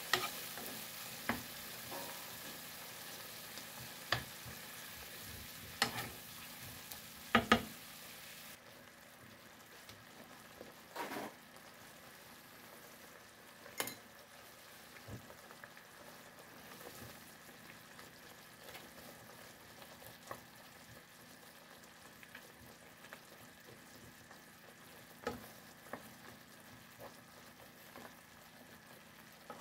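Cream sauce with sliced smoked sausage and onions bubbling and sizzling in a nonstick frying pan, stirred with a wooden spatula that knocks against the pan every few seconds. The sizzle drops sharply about eight seconds in.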